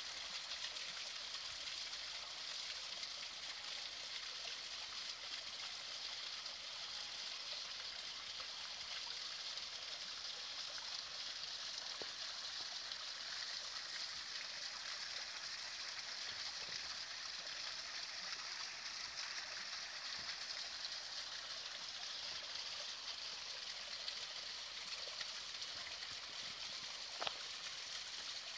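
Small stream of spring water trickling and splashing down over rock steps, as a steady hiss without letup, with a single faint tap near the end.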